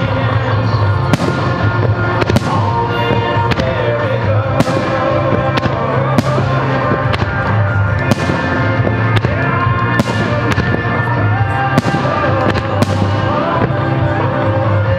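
Aerial firework shells bursting overhead, a sharp bang roughly every second, each trailing off in a crackling echo, with music playing underneath.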